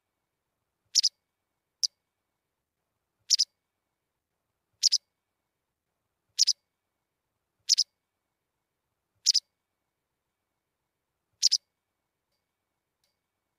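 White wagtail calling: about eight short, high calls, most of them quick double notes, spaced roughly a second and a half apart.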